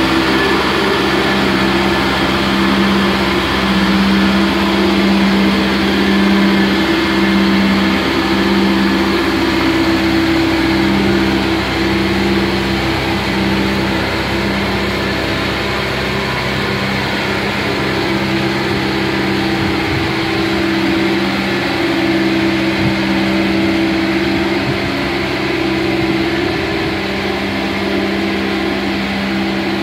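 Engine of a 70-tonne mobile boat hoist (travel lift) running steadily while it carries a sailboat in its slings.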